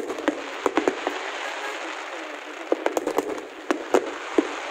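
Fireworks display going off in sharp cracks and pops, a cluster in the first second and another about three seconds in, over steady background noise.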